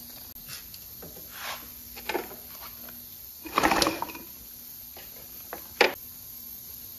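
A 1983 Honda ATC110's single-cylinder four-stroke engine being pulled over by hand with its spark plug out, to check for spark: a few faint scrapes, one longer rushing pull about halfway through, and a sharp click near the end. The engine does not fire: there is no spark.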